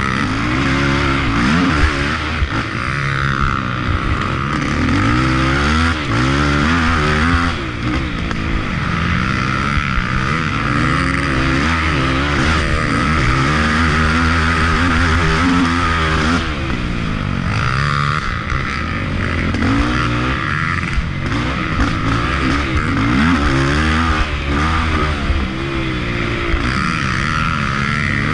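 Racing ATV engine revving up and down again and again as the throttle is worked and gears change on a rough off-road trail, heard close from a camera mounted on the machine.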